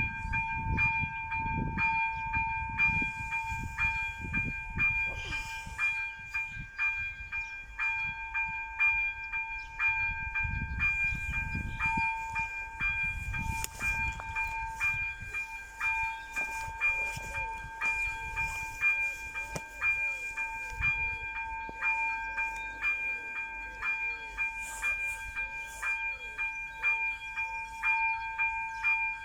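ZV-02 electronic level-crossing bell ringing in a fast, even repeating pattern of bright tones: the crossing's warning is active. Low irregular rumbling runs underneath.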